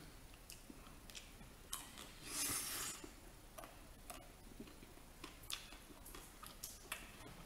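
Small wet mouth clicks and smacks of someone chewing a bite of chocolate-coated ice cream bar, scattered through, with a short breathy rush of noise about two seconds in.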